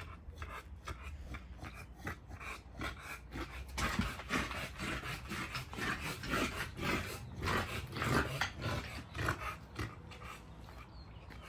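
A pocket American bully dog breathing heavily: a run of short, noisy breaths, uneven in strength.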